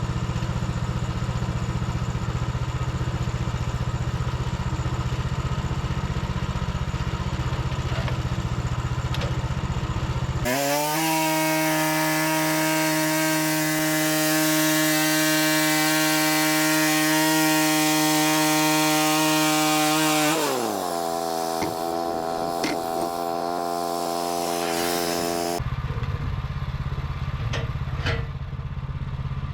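Portable bandsaw sawmill's gas engine running at a low idle, then revving up about ten seconds in to a high, steady whine as the band blade saws through red oak. About twenty seconds in the engine pitch falls as it throttles down, and near the end it is back at a low idle.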